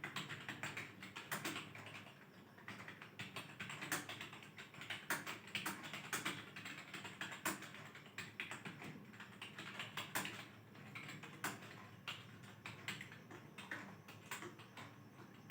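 Computer keyboard being typed on fast and without a break, a dense, uneven run of key clicks at a typing speed of about 54 words a minute.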